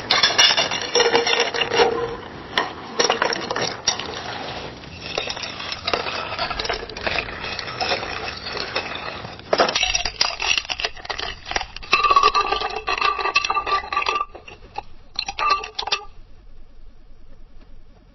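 Ice cubes clinking and rattling against a glass in quick, ringing clicks, in two takes, the second beginning about ten seconds in. The clinking dies away near the end.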